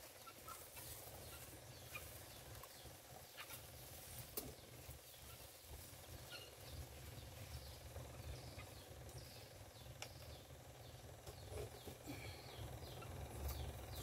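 Quiet background with faint scattered ticks and rustles of fingers and a thin stick working moss and soil inside a glass bowl terrarium, over a low steady rumble, with faint short bird chirps in the background.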